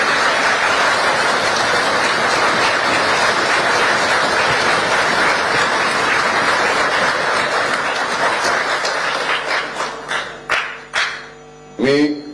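Applause from the members of a legislative chamber, steady and dense for most of the time, then thinning out into a few scattered claps before dying away near the end.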